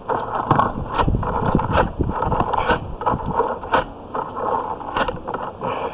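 Sewer-scope camera push cable being shoved and worked back and forth through cast-iron drain piping, an irregular run of scraping, rattling knocks. The cable is stalling at about 93 feet: the inspector puts the resistance down to heavy corrosion inside the cast-iron pipe.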